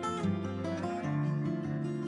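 Background music: acoustic guitar playing, with no singing.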